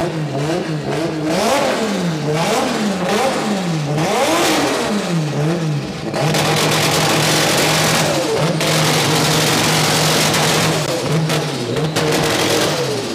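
Drift car's engine, running without catalytic converters, revved hard in quick up-and-down blips about once a second, then held at high revs for several seconds with a couple of brief dips. Very loud.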